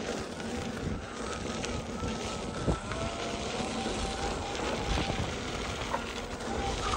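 Riding noise from a Gotway MSX electric unicycle going fast down a dirt trail: steady wind and tyre rumble, with a faint thin motor whine that shifts in pitch and an occasional knock from bumps.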